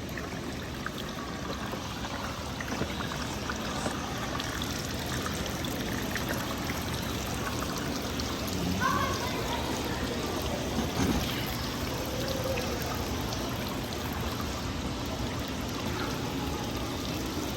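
Water running and trickling steadily at a children's water play table.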